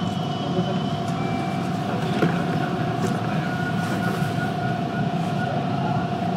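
Toronto subway train of Bombardier T1 cars running on the rails as it pulls out of a station. There is a low rumble from the wheels and a steady whine throughout, with a single sharp click from the track about two seconds in.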